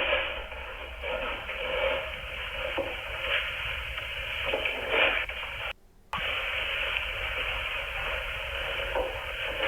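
Steady hiss and low hum from a security camera's microphone, thin and tinny, with a brief dropout about six seconds in.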